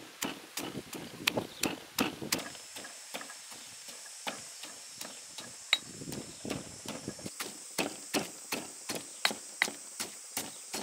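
Stone pestle pounding garlic cloves, cilantro root, black peppercorns and salt in a stone mortar: steady strikes, about two to three a second, as the mixture is crushed to a paste.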